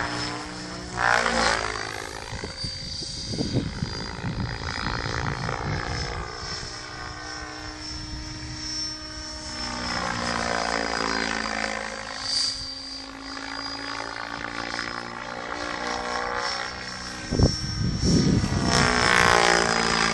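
Mikado Logo 800 Xxtreme electric RC helicopter flying overhead: a rotor and motor drone whose pitch glides up and down as it manoeuvres, with a thin steady high whine above it. It swells louder near the start and again near the end.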